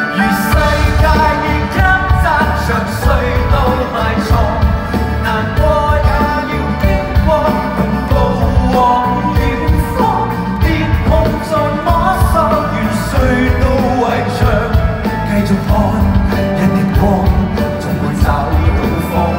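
Live pop-rock band playing in a large hall, electric guitar, bass, keyboards and drums under a male lead vocal, heard from the audience. The bass and drums come in full right at the start and the band plays on steadily.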